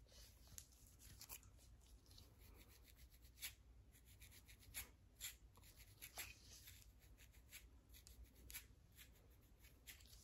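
Quiet, dry scratching of a small fine-tooth comb raked over a scalp crusted with dandruff flakes, in quick, uneven short strokes, several a second.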